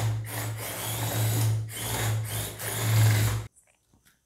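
The small DC gear motors of an Arduino robot car running under phone Bluetooth control, a steady humming whir that dips briefly a few times. The whir cuts off suddenly about three and a half seconds in, leaving only a few faint clicks of the plastic car being handled.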